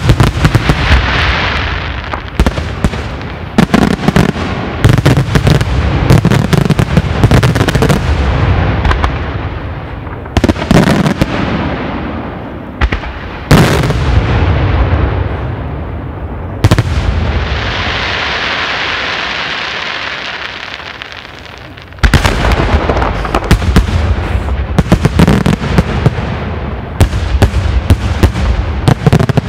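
Daytime fireworks display: rapid volleys of loud aerial shell bursts and bangs, the shells leaving coloured and white smoke. A few seconds past the middle the bangs stop for a spell of hissing, then a dense barrage of bangs resumes.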